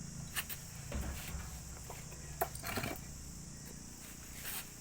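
Steady high insect chirring, like crickets, with a few short sharp knocks and clicks from work going on as the engine is mounted.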